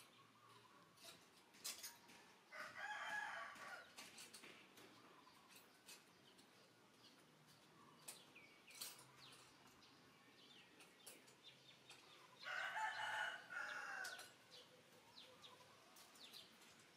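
A rooster crowing twice, a little over a second each time, about two and a half seconds in and again about twelve seconds in, with short faint ticks and chirps between the crows.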